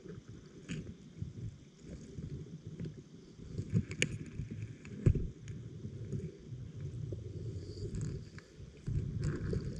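Underwater sound through a GoPro's waterproof housing: a low, uneven rumble of moving water with scattered clicks. A sharp click comes about four seconds in and a dull thump about a second later.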